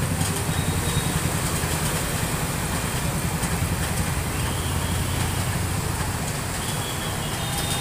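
Road traffic of cars and motorcycles driving through floodwater, engines running with a steady low hum.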